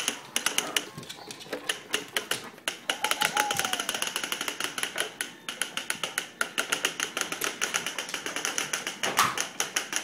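Wooden toddler push walker wagon rolling over a hardwood floor, a fast, even run of clicks and rattles at about seven a second. A baby's short vocal sound about three seconds in.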